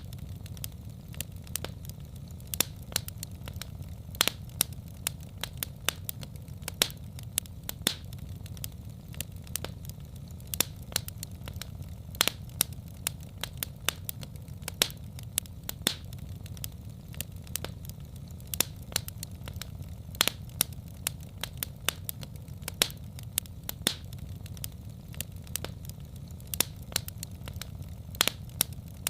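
Wood fire in a fireplace crackling: sharp, irregular pops and snaps over a steady low rumble.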